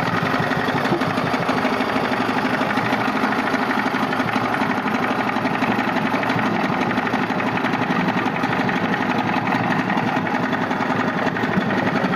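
Johnson 25 hp outboard motor running steadily.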